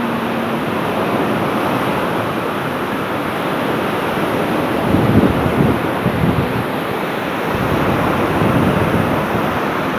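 Sea surf breaking on the shore, a noisy, steady rush, with wind on the microphone. The rush grows louder and rumbles for a moment about five seconds in.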